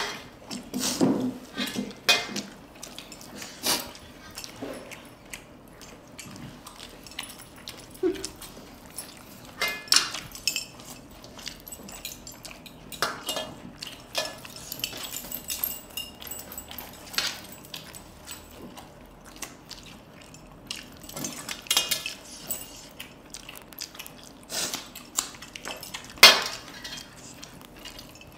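Eating by hand from stainless-steel plates: scattered irregular clinks and taps as fingers and metal rings knock and scrape against the plates, with chewing and mouth noises in between.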